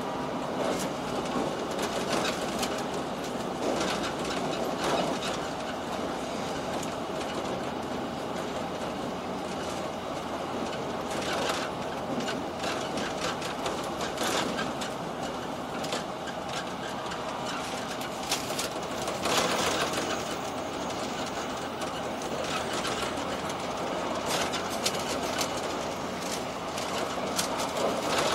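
Limited express Sonic electric train running at speed, heard from inside the passenger cabin: a steady rumble of wheels on rail with scattered clicks from the track.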